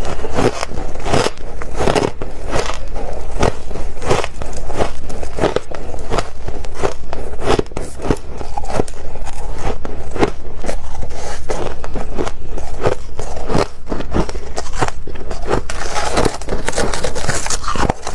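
Freezer frost being bitten and chewed close to the microphone: a continuous run of crisp, crackling crunches, roughly two a second.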